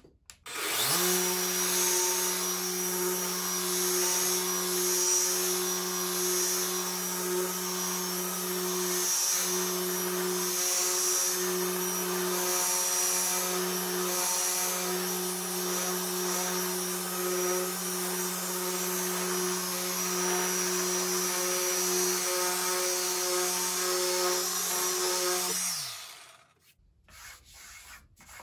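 Bosch GET75-6N random orbit sander in its aggressive turbo mode, with 150-grit paper on epoxy and wood. It spins up about half a second in, runs steadily under load, and winds down with a falling pitch near the end.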